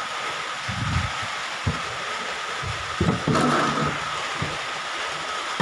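Steady hiss with a faint high tone, broken by several dull low bumps and a louder rustle about three seconds in. This is typical of a phone being moved around by hand while recording.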